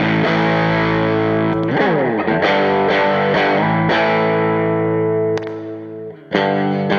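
Stratocaster electric guitar played through distortion pedals into an AmS Hurricane 40 valve amp head with four 6V6 output tubes, sustaining driven chords. About two seconds in a chord slides down in pitch, then several chords are struck; near the end a chord is left to fade before the next one is hit.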